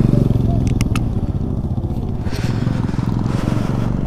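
TVS Apache RR310's single-cylinder engine idling steadily, its firing pulses even and unchanging. A couple of sharp clicks come about a second in.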